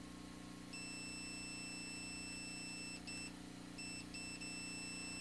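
Multimeter continuity beeper sounding a steady high beep as the probes bridge a wirewound potentiometer's terminal and winding, which signals an electrical connection. It comes in about a second in and cuts out briefly a few times between three and four and a half seconds in, as the probe contact breaks and is made again.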